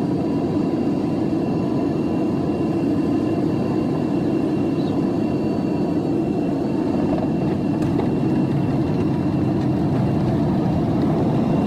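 Cabin noise of a Boeing 777 jet airliner landing, heard from a window seat by the wing: a loud, steady rush of engines and airflow with a few faint steady whining tones.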